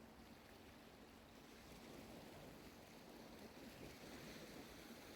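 Near silence: a faint, steady wash of distant surf and wind.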